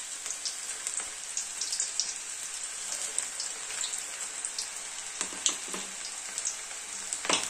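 Batter-coated okra deep-frying in hot oil in a kadai: steady sizzling with many small crackles and pops as pieces are dropped in. A single sharp knock near the end.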